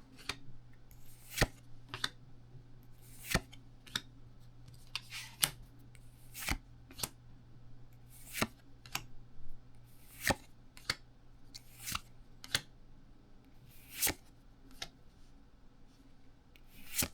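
Pokémon trading cards from a freshly opened booster pack being handled, giving short rubbing flicks about one a second as cards are slid over one another. A faint low hum runs underneath.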